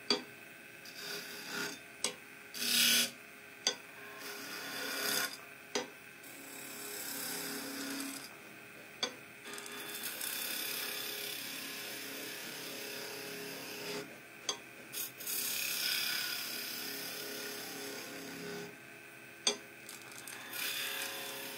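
Wood lathe turning a small wooden spindle while a flat chisel scrapes it: a dry rasping hiss that comes and goes as the tool is pressed in and eased off, with a few short sharp clicks, over a faint steady motor hum.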